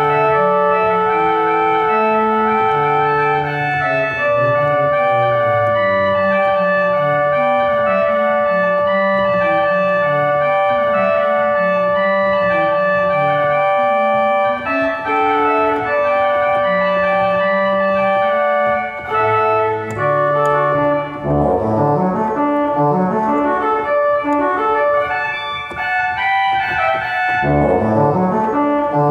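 Organ music: slow chords with long held notes, moving into quicker running figures about two-thirds of the way through.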